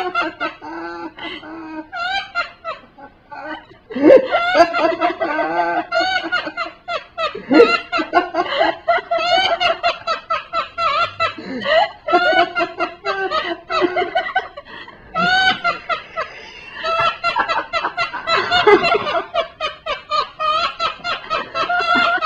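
Monk parakeet imitating human laughter: long runs of rapid, high-pitched laugh-like calls, broken by a few short pauses.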